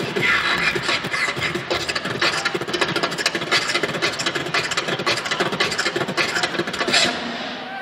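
Beatboxing into a handheld microphone through a stage PA: a fast, dense run of mouth-made drum sounds, falling away about seven seconds in.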